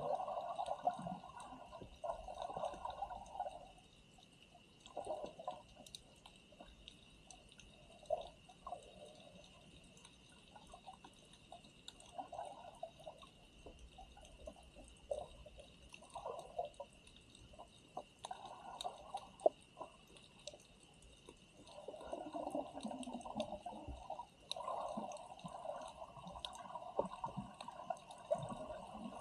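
Water gurgling and sloshing in irregular spells, strongest near the start and again from about two-thirds of the way in, with scattered faint clicks.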